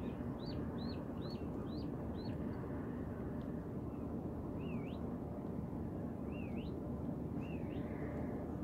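A bird calling: a quick run of five short, high chirps about two a second, then a few slower calls that dip and rise, over a steady low rushing noise.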